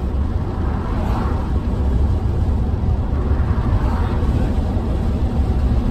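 Steady low road rumble inside the cabin of a moving Tesla Cybertruck, with no engine note from the electric truck.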